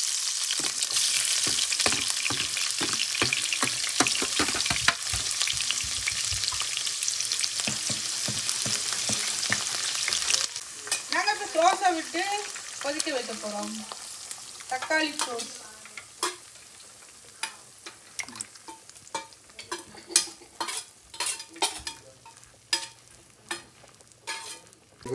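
Chopped onion and garlic sizzling in hot oil in a nonstick pan. About ten seconds in the sizzle drops off sharply as tomato sauce goes into the pan, leaving scattered clicks and taps of stirring.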